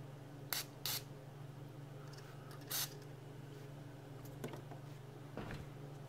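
Three brief hissing spurts of DeoxIT D5 contact cleaner from an aerosol can, sprayed through its thin extension straw onto the wafers of a rotary selector switch to clear light contact corrosion. The spurts come about half a second, one second and three seconds in, over a steady low hum.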